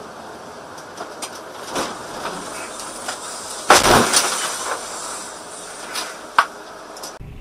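Chunks of snow and ice hit a vehicle's windshield with one loud thump about three and a half seconds in. Smaller knocks come before and after it, over steady road noise in the cab.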